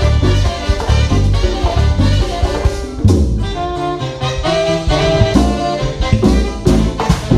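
Live Latin dance band playing an instrumental passage: horns carry the melody over bass and drum kit with a steady beat, ending in a run of sharp accented hits.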